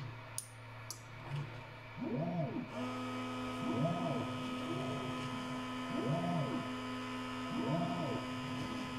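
Stepper motors of a Kingroon KP3S Pro S1 3D printer converted to a pick-and-place machine, moving the placement head in a string of short moves. Each move is a whine that rises and falls in pitch, roughly every one and a half seconds. Two short clicks come near the start, and a steady hum joins about three seconds in.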